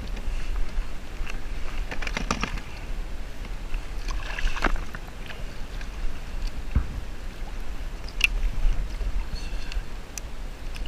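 Water splashing and sloshing as a hooked sea bass thrashes at the surface beside a kayak, with a few knocks on the hull and a steady low wind rumble on the microphone.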